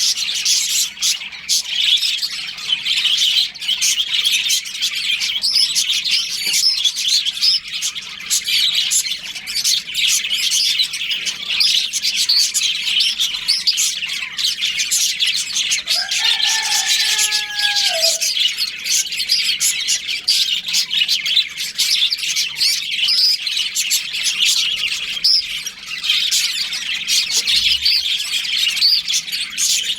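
A colony of budgerigars chirping continuously, a dense chorus of many short, high, overlapping chirps. About sixteen seconds in, a lower, longer call with a few held notes sounds for about two seconds over the chorus.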